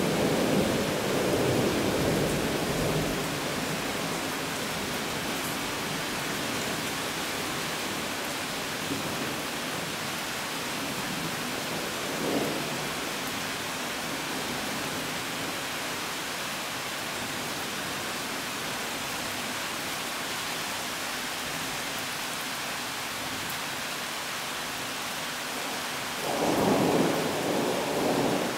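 Heavy summer downpour, a steady hiss of rain, with rolls of thunder: one at the start, a short one about twelve seconds in, and the loudest near the end.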